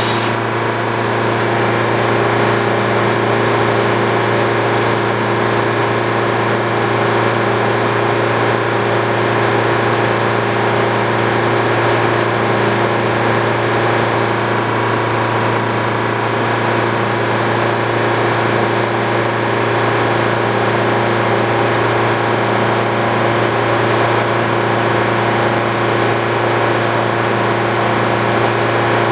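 Old Frick sawmill running steadily: a loud, constant machine drone with several unchanging hum tones, the strongest a low hum, and no change in speed or load.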